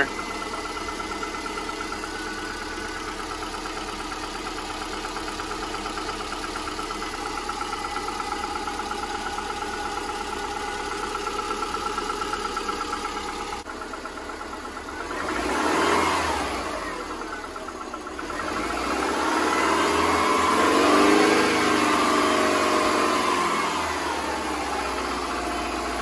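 A cold 2005 Subaru Impreza's 2.5-litre EJ25 flat-four engine idling with a fast, even knocking: piston slap, the pistons rocking against the cylinder walls while the engine is cold. The sound swells louder twice in the second half.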